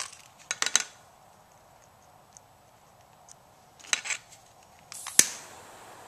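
Handheld gas torch: its steady hiss cuts off at the start. Then come sharp igniter clicks: three about half a second in, a pair near four seconds, and the loudest single click just after five seconds with a brief hiss of gas.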